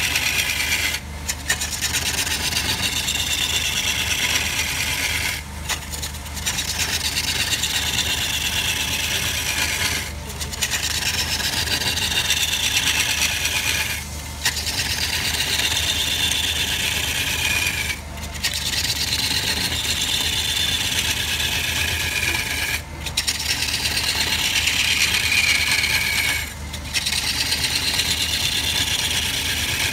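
A wood lathe spins a log while a hand-held turning tool cuts deep grooves into it: a continuous rasping cut with a whine that falls in pitch through each cut. There are short breaks about every four seconds between cuts, over a steady low motor hum.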